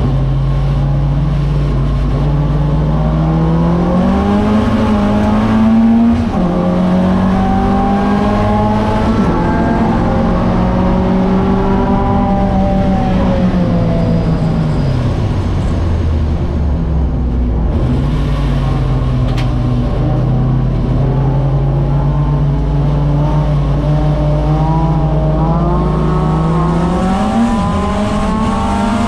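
Alfa Romeo 1600 GTA's twin-cam four-cylinder engine, heard from inside the stripped race car's cabin, working through the gears. It revs up and drops on a gearchange about six seconds in, holds, falls away through the middle as the car slows, picks up sharply again, then climbs to another upshift near the end.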